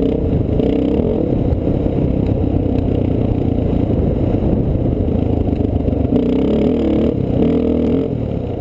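Dirt bike engine running under way on a trail, its pitch rising and falling with the throttle.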